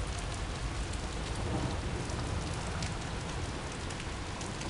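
Rain falling during a storm: a steady hiss with scattered drop ticks and a low rumble underneath.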